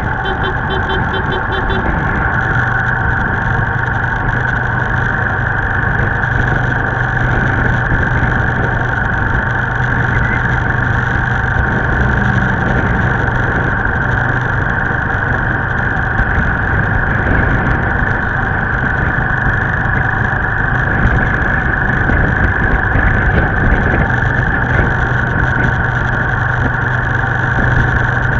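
Motorbike engine running steadily while riding along a road, with road and wind noise, heard from a camera mounted on the moving bike.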